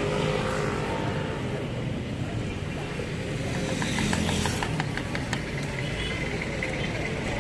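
Steady low rumble of street traffic with the hiss and crackle of hot oil bubbling in a large frying pot; a run of small crackles comes a few seconds in.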